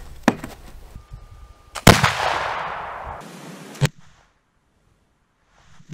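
.50-calibre flintlock rifle firing a round ball: one loud shot about two seconds in, its echo fading over about a second. A small click comes before it, and a second short, sharp crack follows near the four-second mark.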